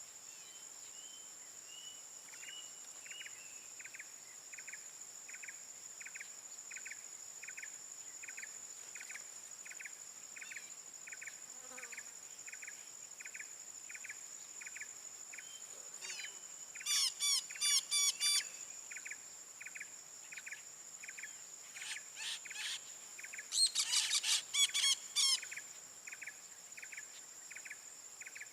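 Steady high-pitched insect drone with a bird repeating one short note about twice a second; twice, a little past halfway and again near the end, a louder burst of rapid, shrill sweeping bird calls breaks in.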